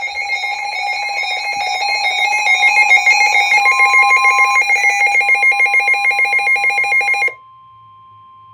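Emergency weather alert alarm: a loud, rapidly pulsing two-pitch electronic tone that cuts off about seven seconds in. Under it and after it, a faint steady single-pitch tone continues to near the end, typical of the weather radio warning alarm tone that comes before a new warning.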